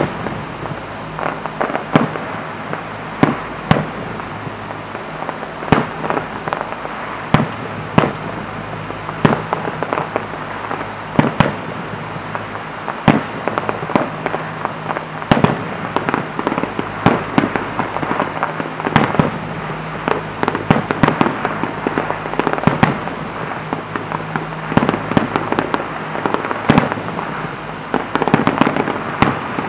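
Fireworks display: aerial shells bursting in a fast, irregular barrage, with sharp bangs roughly every second and dense crackling between them.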